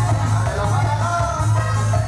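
Latin dance music played loud over a DJ sound system, with a heavy, steady bass line and a melody on top.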